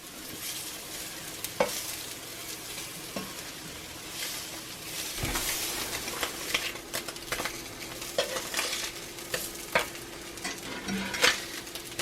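Spam slices sizzling in a cast iron skillet, a steady frying hiss with scattered clicks and taps of a utensil against the pan. A low thump comes about five seconds in, and a steady hum starts with it.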